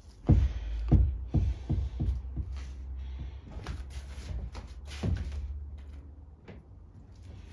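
Knocks and taps of small metal carburetor parts being handled and set down, most of them in the first two and a half seconds and one more about five seconds in, over a low steady hum.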